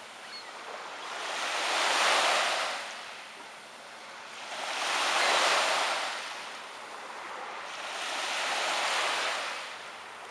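Small waves washing onto a beach, rising and falling in three slow swells a few seconds apart.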